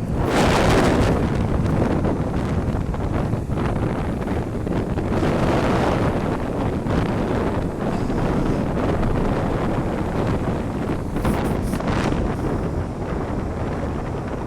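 Strong wind buffeting the microphone in gusts, with ocean surf washing beneath it.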